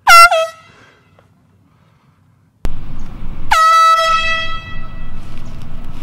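Handheld air horn blown at full blast: two quick short honks, then about three and a half seconds in one longer honk that fades away over a second or so.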